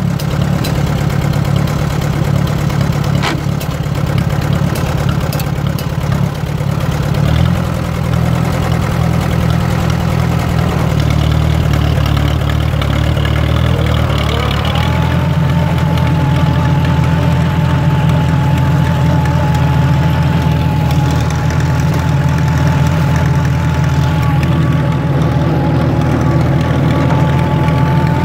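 1940 Allis-Chalmers B tractor engine running steadily while the tractor is driven. A deeper note comes in about a quarter of the way through, and a whine rises about halfway and then holds steady.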